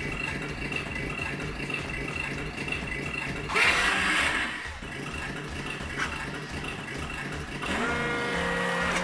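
Electronic engine sound effect from a Mattel Ultimate Batmobile R/C toy, a steady pulsing idle. About three and a half seconds in comes a short, loud, noisy burst, and near the end a rev rising in pitch.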